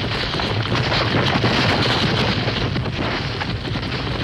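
Cartoon sound effect of a herd of animals stampeding: a dense, steady rumble of many hooves.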